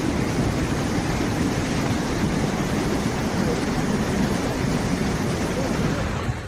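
Muddy floodwater surging in a fast torrent: a loud, steady, deep rushing of churning water.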